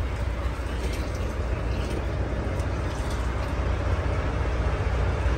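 Water from a hose running into a truck's plastic water tank, over the steady low rumble of an idling truck diesel engine.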